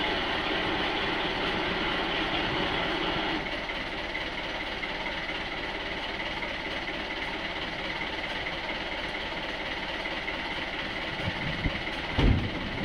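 Boat engine running steadily, easing off about three seconds in as the boat slows toward the dock. Near the end, a few low thumps as the bow bumps onto the floating dock.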